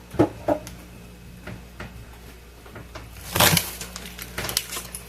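Frozen food packages being handled and shifted in a chest freezer: scattered knocks and clicks, with a louder crinkling rustle of packaging about three and a half seconds in.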